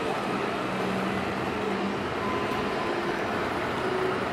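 Scale RC Mercedes-Benz truck's sound module playing a steady diesel engine hum as the tractor unit creeps forward with its low-loader trailer, over a constant hall background noise.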